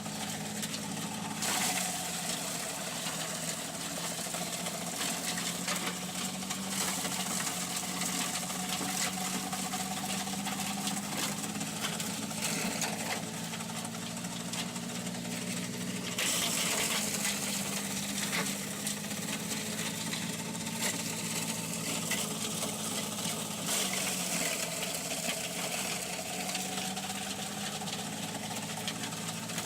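A motor running steadily under a hiss. Its pitch drops suddenly three times and slowly climbs back after each drop.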